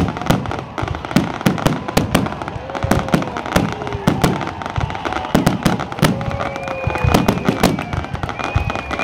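A fireworks display: aerial shells bursting in a dense barrage, with rapid overlapping bangs and crackling several times a second.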